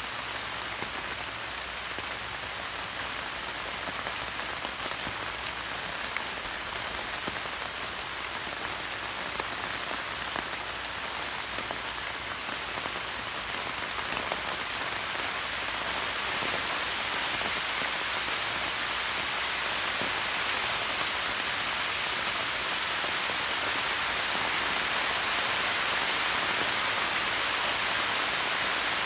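Steady rain falling on foliage, with a few sharper drop ticks; the rain grows heavier about halfway through.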